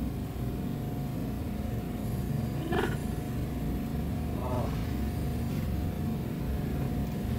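Steady low mechanical hum with a constant thin whine, broken by two short voice sounds, one about three seconds in and another about a second and a half later.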